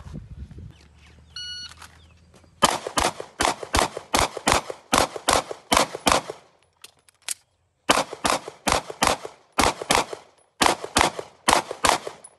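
A shot timer beeps once, then a semi-automatic pistol fires two fast strings of shots, about three to four a second. The strings are separated by a pause of over a second.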